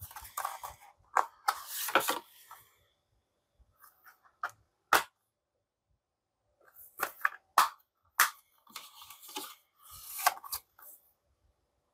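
Handling of a plastic Blu-ray case and its cardboard slipcover: rustling and scraping, with several sharp clicks as the case snaps open and shut.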